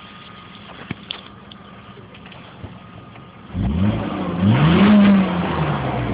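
Mercedes-Benz W202 C280 engine on its stock exhaust, idling quietly, then revved twice from about three and a half seconds in. The second rev is held briefly before the pitch falls back toward idle.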